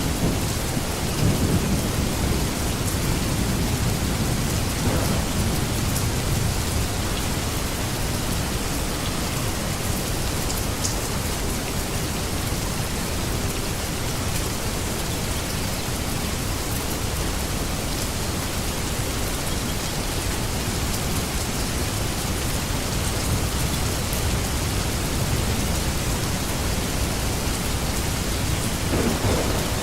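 Steady heavy rain hissing, with low rumbles of thunder underneath that swell in the first few seconds and again near the end.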